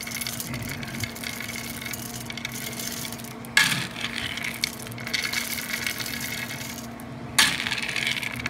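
Hardwood pellets pouring and rattling into a 12-inch perforated steel smoke tube as it is filled, a dense clatter of small hard clicks. It surges twice, about three and a half and seven and a half seconds in.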